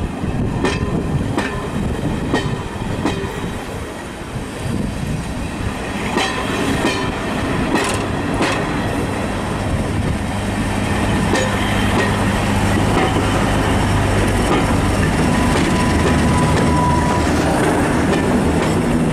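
Passenger coaches rolling past, their wheels clicking over rail joints, then the steady drone of British Rail Class 31 diesel locomotive 31289's English Electric V12 engine, growing louder through the second half as the locomotive comes past.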